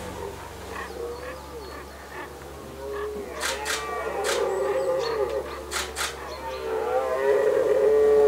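Red deer stags roaring in the rut, several drawn-out calls overlapping and growing louder toward the end. A few sharp clicks come about three and six seconds in.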